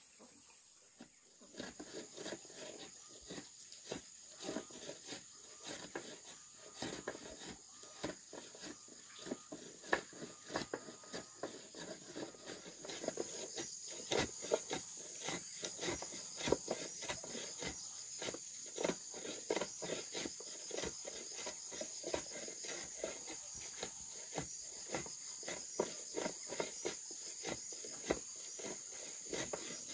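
Irregular knocking and tapping, several knocks a second, starting about a second and a half in, over a steady high-pitched insect drone that grows louder about halfway through.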